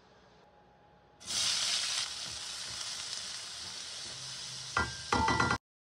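Chopped onion, capsicum and tomato hitting hot oil in a stainless steel wok: a sudden loud sizzle about a second in that settles into a steady fry as they are stirred. Near the end a utensil clinks against the wok with a short ringing tone, and the sound cuts off suddenly.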